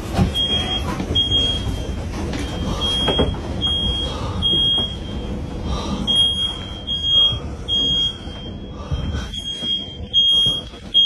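High-pitched electronic alarm beeping over and over, about one to two short beeps a second, more regular as it goes on. Underneath is a steady low rumble with a few knocks.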